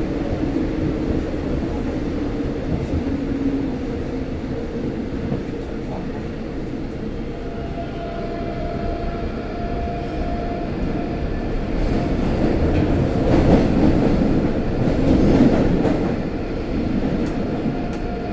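Incheon Subway Line 1 train running between stations, heard from inside the carriage: a steady rumble with a humming tone, joined by a higher tone about seven seconds in, and growing louder for a few seconds near the end.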